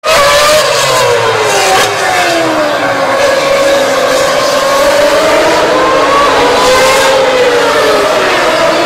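Formula One cars' engines running at high revs, several at once, their pitch gliding up and down as they accelerate and lift off around the circuit.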